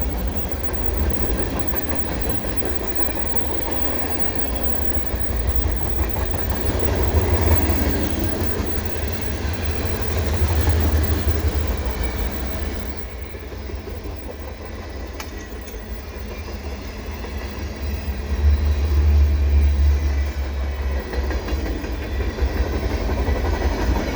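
Freight cars of a CN manifest train rolling past, steel wheels running on the rails with a continuous low rumble that swells and fades a few times.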